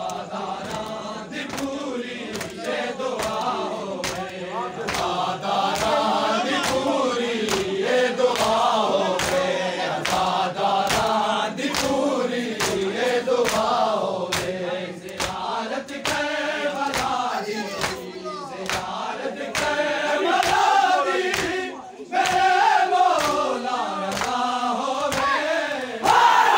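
Male mourners chanting a lament in unison while beating their chests in matam, the hand slaps on bare chests keeping a steady beat a little under two a second. Near the end the chant breaks off briefly, then the crowd comes back louder.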